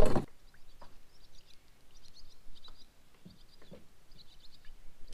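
Small songbirds chirping and trilling in quick bursts, with a few faint knocks. A short loud thump comes right at the start.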